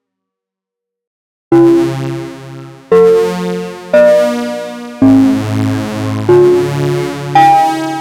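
Vectra software synthesizer with its unison stack engaged, playing six short chords, each struck sharply and dying away, after about a second and a half of silence.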